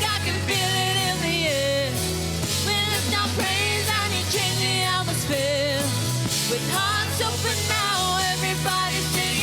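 Contemporary worship song: a vocalist sings a wavering melody over a band with a steady bass line.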